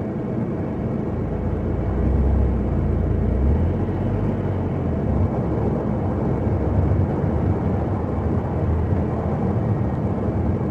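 A car driving, with a steady low rumble of engine and road noise that swells slightly about two seconds in.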